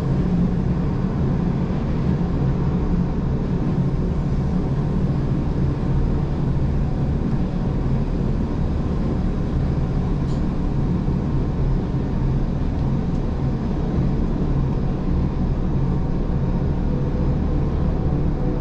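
Gornergrat Bahn electric rack-railway train running steadily downhill, a continuous low rumble of wheels and drive on the track with a faint steady hum above it, heard from inside the passenger car.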